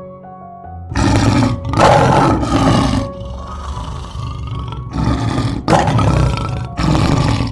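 A large animal roaring, several long roars in a row starting about a second in, over background music.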